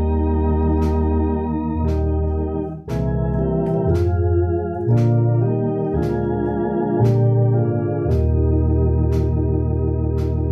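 Two-manual electronic organ playing a slow hymn in sustained chords over a bass line. A sharp click about once a second keeps the beat.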